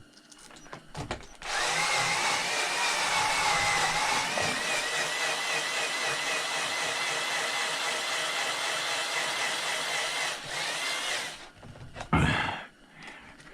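Power drill with an extension bit running steadily for about nine seconds, its whine wavering slightly, while backing out screws from a chop saw. It stops, then gives a couple of short bursts near the end.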